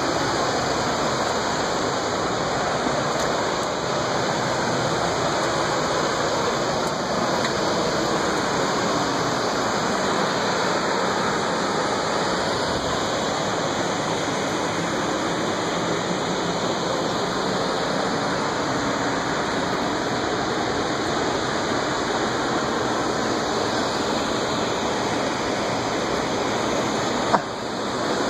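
Steady rush of Eagle Creek's white water below the trail, an even unbroken roar. A single short knock sounds about a second before the end.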